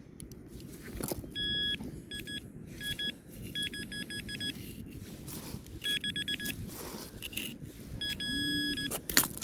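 Handheld metal-detecting pinpointer beeping in short high electronic tones, with some single beeps and some quick trains of rapid beeps as it homes in on a buried metal target. Low rustling and scraping of sand sound underneath.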